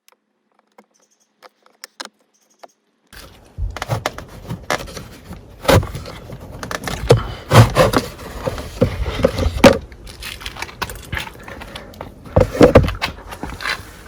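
Screwdriver work on the plastic glove box unit: faint clicks at first, then from about three seconds in a busy run of scraping, rattling plastic clicks and several sharp knocks as the screw is taken out and the part it screws into is worked loose.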